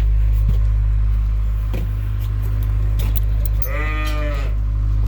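A sheep bleats once, a wavering call lasting about a second, starting about three and a half seconds in, over a steady low hum and a few light clicks.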